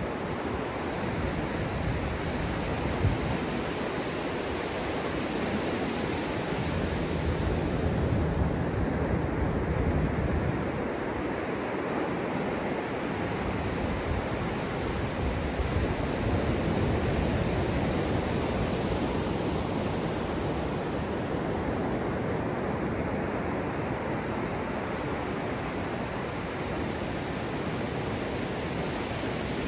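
Ocean surf close to the microphone: small waves break and foam washes up the sand in a continuous rush. It swells and eases as each wave comes in and draws back.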